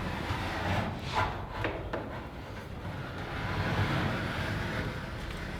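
Squeegee rubbed over an insulation panel to press it onto the garage door's double-sided tape: a few short rubbing swishes over a low steady rumble.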